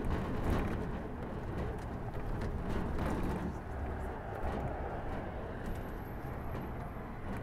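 Tour bus moving through city traffic: steady engine and road noise.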